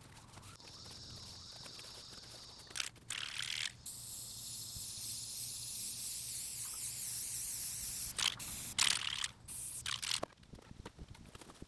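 Aerosol spray paint can hissing in bursts: a short spray about three seconds in, a long steady spray of about four seconds, then a few short sprays near the end.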